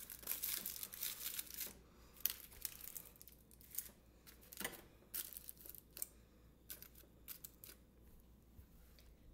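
Aluminium foil crinkling and tearing as it is wrapped around a sauce packet, dense for the first couple of seconds, then scattered crinkles, with one sharp click about two seconds in.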